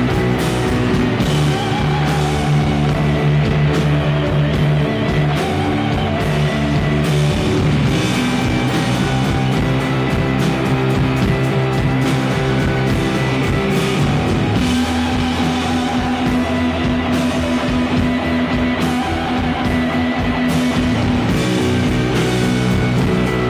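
Live rock band playing: electric guitars holding sustained chords over a drum kit, the chords changing about every six or seven seconds.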